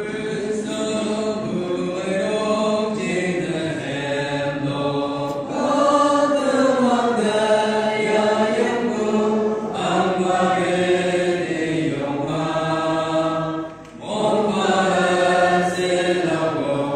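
Mixed church choir of men and women singing a hymn together in long, held phrases, with a brief pause between phrases near the end.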